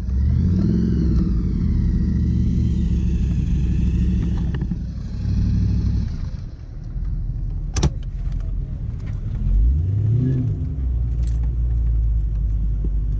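A car engine running loudly, revved up about a second in and again near ten seconds. A sharp click sounds near eight seconds.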